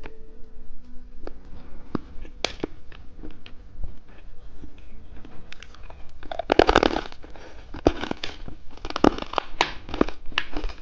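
Close-range crackling and crunching from candy being unwrapped and eaten: irregular sharp clicks, with a dense loud cluster about six and a half seconds in and more around nine seconds.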